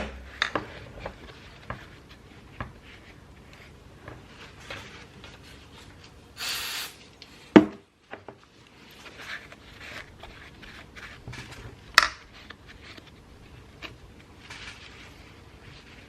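Scattered clicks and knocks of hand tools and engine parts being handled on a workbench, with a short hiss about six and a half seconds in and a sharper knock just after it.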